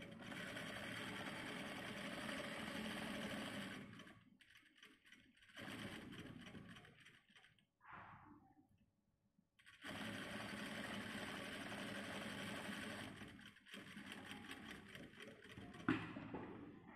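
Electric sewing machine stitching the edge seam of a cloth mask, running in several stretches of a few seconds with short stops between them. The longest runs are at the start and about ten seconds in, and there is a single sharp click near the end.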